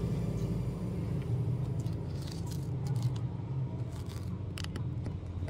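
Small metallic clicks of a precision screwdriver working on screws and a metal shield plate inside an opened smartphone, with a couple of sharper clicks about four and a half seconds in, over a steady low hum.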